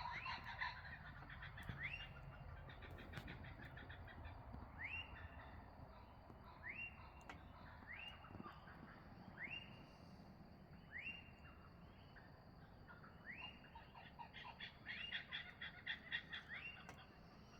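Faint morning chorus of wetland birds: a call that sweeps upward and then holds, repeated every second or so, over a busy background of rapid clicking chatter.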